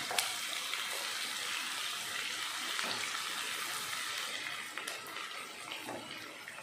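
Sliced onions, green chillies and ginger-garlic paste sizzling in hot oil in a nonstick kadai as they are stirred with a spatula: a steady frying hiss, easing a little near the end.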